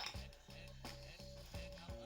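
Background music: soft held low notes under a short higher note that repeats about once every half second.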